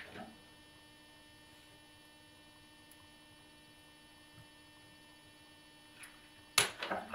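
Steady electrical mains hum, with a sharp click near the end and a few fainter knocks around it.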